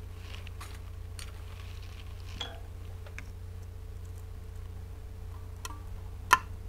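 Faint scattered clicks and light taps of a small screwdriver and metal parts as a gear is taken off a mini mill's head, with one sharper click about six seconds in. A steady low hum runs underneath.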